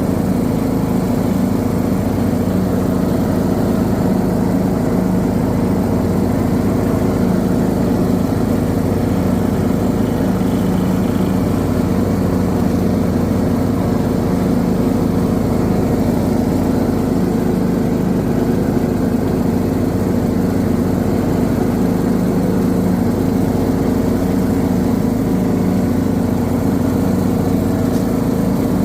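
Briggs & Stratton 19 hp engine on a John Deere D110 lawn tractor running at a steady speed, with brief dips in the low rumble every few seconds. This is an engine that surges and misfires under load.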